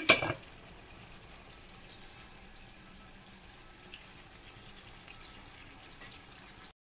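A stainless-steel pot lid clanks down onto a pot of rice right at the start. Then a faint, steady hiss of chicken adobo simmering in its soy-vinegar sauce in a pan, which breaks off abruptly near the end.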